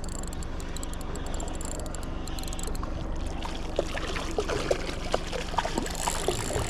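Water sloshing and trickling against a small boat's hull over a steady low hum, with irregular splashy ticks that thicken from about three seconds in.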